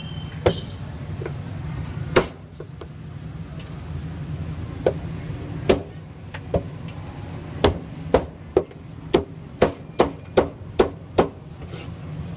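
A cleaver chops cooked meat on a thick wooden chopping block with sharp thuds. There are a few separate strokes at first, then from about halfway through a quick steady run of about two to three chops a second.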